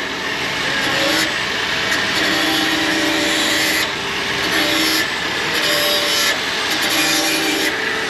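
Vehicle on the move: steady rushing road and wind noise with a faint low engine drone. The sound changes abruptly several times where short shots are cut together.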